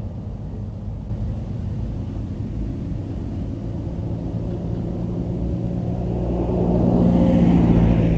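Low wind rumble on the microphone, with a motor engine passing by: its steady hum builds from about halfway through, is loudest near the end, then starts to fade.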